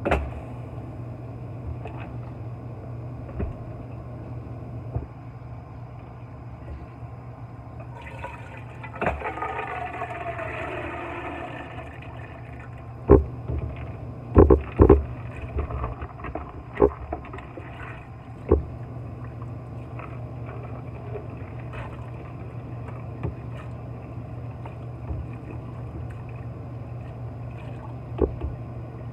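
Tap water running from a kitchen faucet into a pot while black beans are rinsed, with water sloshing in a plastic container for a few seconds and several sharp knocks of the container against the pot near the middle.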